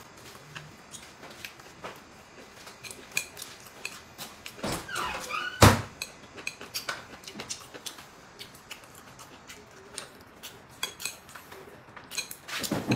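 Chopsticks clicking and tapping against porcelain plates and bowls at a table, in scattered small knocks; one sharp clink about five and a half seconds in is the loudest.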